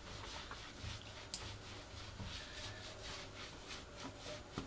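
Hands rubbing a wet dog's coat: soft, even strokes about three a second, with one sharp click about a second in.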